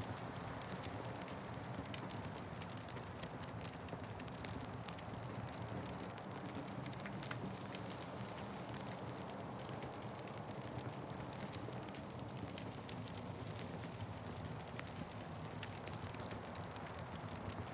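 Wood fire crackling: many small snaps and pops scattered over a steady low rushing noise.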